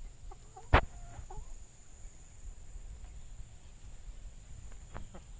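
Brown laying hens clucking faintly in short calls, with one sharp knock a little under a second in that is the loudest sound.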